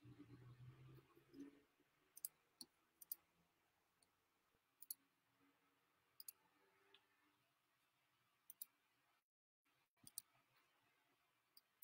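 Near silence: faint room tone with a dozen or so faint, scattered clicks spread irregularly through it.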